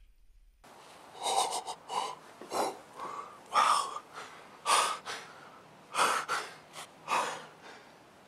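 After a brief hush, a man breathes hard and fast, with deep gasping breaths about one a second. He is winded with excitement just after shooting at a deer.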